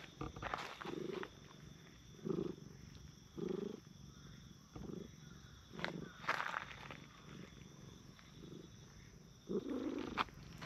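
Cat purring while being petted, heard as a low rhythmic purr that swells with each breath about every second or so, with a few brief rustling sounds of a hand on fur.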